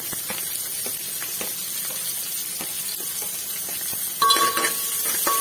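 Chopped onion, garlic and ginger sizzling in hot oil with cumin seeds in a pot, an even hiss with scattered crackles and pops. About four seconds in, background music with steady tones comes in over it.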